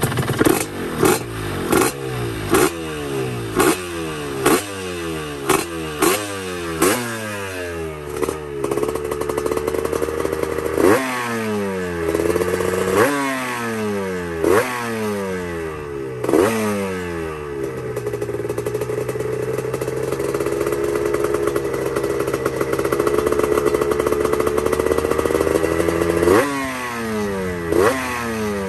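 Yamaha RXZ 135's single-cylinder two-stroke engine being revved in quick throttle blips, each jumping up and falling back, about one a second. Midway it is held at a steady raised speed for several seconds, and the sharp blips return near the end.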